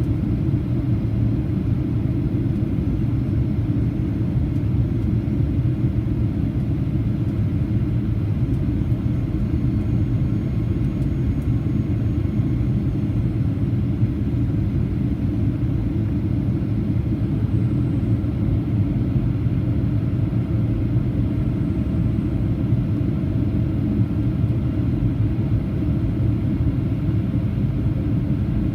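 Cabin noise of a Boeing 737-800 in flight: a steady low rumble of engines and airflow heard from inside the passenger cabin.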